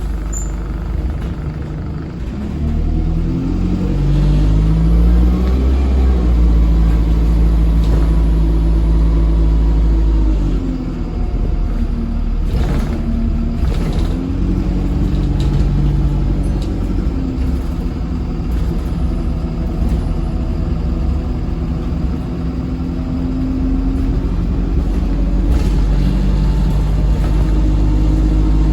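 Dennis Dart SLF bus engine heard from on board while pulling away, its revs rising in steps through the Allison 2100 four-speed automatic gearbox's upshifts, with a thin whine rising alongside. The pull eases off about ten seconds in, then the bus accelerates again and runs steadily under power.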